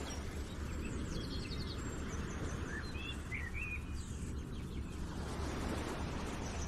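Steady rushing background ambience, strongest at the low end, with a few short high chirps about halfway through.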